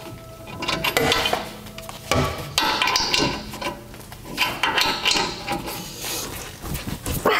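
Metal hand tools clinking and scraping against a pickup's rear brake caliper and bracket during a pad and rotor job, with irregular sharp knocks about once a second.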